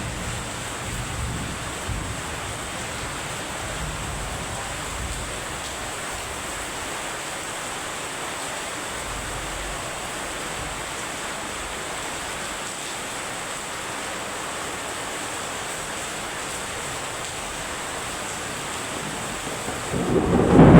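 Heavy rain falling steadily, with a low rumble of thunder in the first couple of seconds and a loud roll of thunder swelling near the end.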